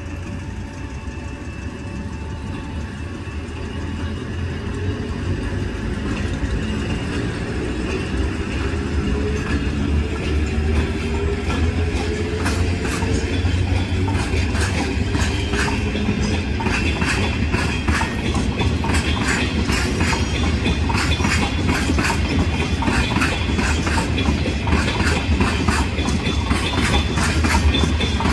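Freight train pulling away: the electric locomotive's motors whine, rising in pitch as it gathers speed, then the loaded cement tank cars roll past with quickening wheel clicks over the rail joints, growing louder.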